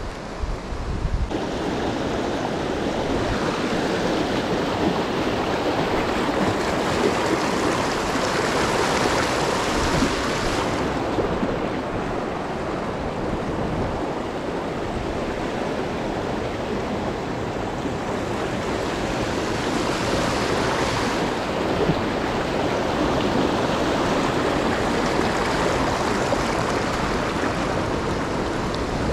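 Small stream flowing: a steady rush of water.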